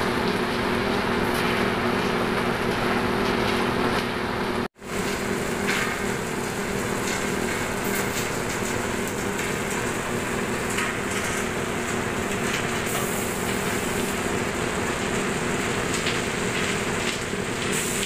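Asphalt plant machinery running steadily: the oil burner firing into the rotary drum gives a continuous hissing rush over a low hum of motors. The sound cuts out for an instant just under five seconds in, then carries on unchanged.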